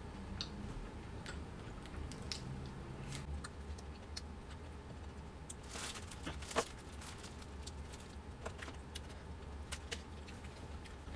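Chewing and the handling of a plastic bag of soup and plastic food containers: scattered light clicks and crinkles, with a cluster of louder crinkles about six seconds in, over a steady low hum.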